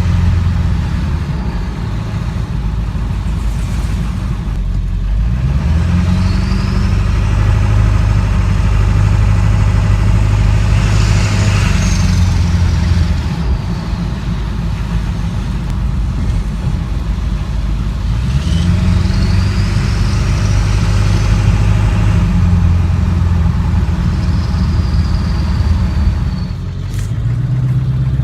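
Heard from inside the cab: a 2000 Ford Excursion's 7.3 Powerstroke turbodiesel V8 under way, its low drone rising and falling in pitch a couple of times with the throttle. A high turbo whistle rises and fades over it.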